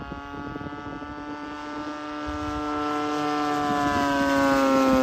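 DLE 55 single-cylinder two-stroke gas engine on an RC aerobatic plane (Valley View RC Slick 540) running steadily in flight. It grows steadily louder as the plane comes closer, and its pitch dips slightly near the end as it starts to pass.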